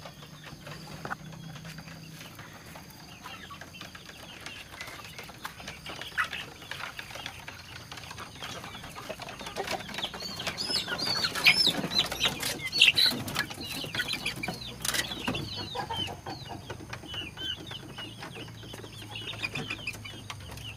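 Chickens clucking and chirping in short high calls, which grow busy from about halfway through, with a few sharp knocks among them.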